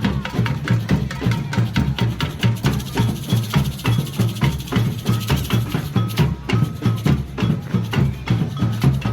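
Percussion-led music with a steady, fast drum beat and sharp, woodblock-like strikes.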